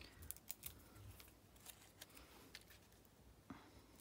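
Near silence with scattered faint clicks and light paper handling: small foam adhesive dimensionals being peeled off their backing and stuck to the back of a paper sentiment strip, which is then pressed onto a card. The most distinct click comes about three and a half seconds in.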